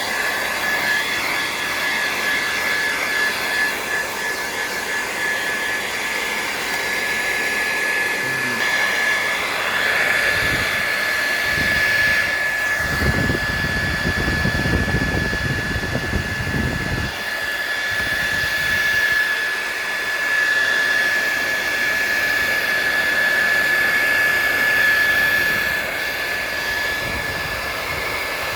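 A 2200-watt hair dryer running steadily, with a constant high whine over the rush of air, blowing heat onto a tablet screen to soften its adhesive. A stretch of low rumble comes in the middle.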